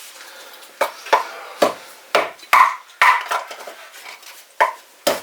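Firewood crackling as it catches in a freshly lit metal stove-fireplace: about eight sharp, irregular cracks and pops, some with a short ring. The stove is drawing well.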